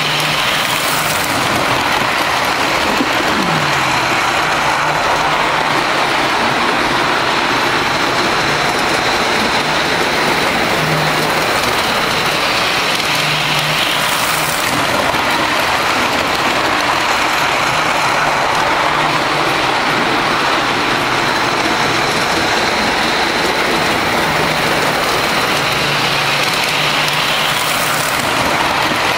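G-gauge model steam locomotive and its train running on the track close by: a steady whir of the electric motor and metal wheels rolling on the rails.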